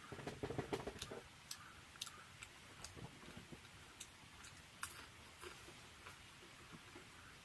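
Close-miked mouth sounds of eating a fried singara (samosa): soft chewing with wet lip smacks and clicks, busiest in the first second, then single scattered clicks.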